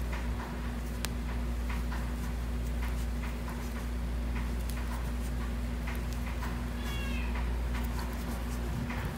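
Domestic cat meowing once, briefly, about seven seconds in, over a steady low electrical hum.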